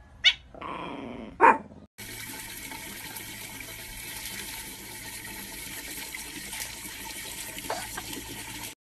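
Water running steadily from an outdoor tap and splashing into a plastic watering can, an even hissing splash that stops abruptly. It is preceded in the first two seconds by two short, loud animal cries.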